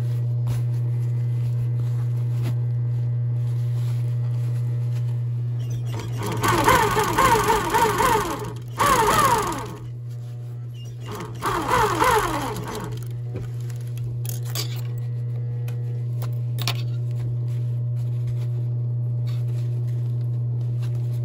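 Industrial sewing machine stitching leather in two short runs, the first about six seconds in and the second near twelve seconds, its pitch rising and falling as it speeds up and slows. Between runs a steady low hum carries on, and a few sharp clicks come later.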